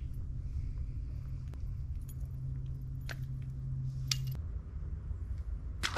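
Light clicks and metallic clinks of a lure and its hooks as a freshly caught bass is handled, over a steady low hum that stops about four seconds in. A sharp knock comes at the very end.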